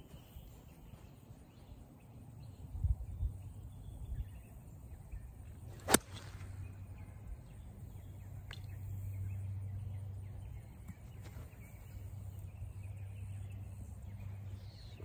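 A 3-wood striking a golf ball off the tee: one sharp crack about six seconds in. The golfer says he hit this drive terribly.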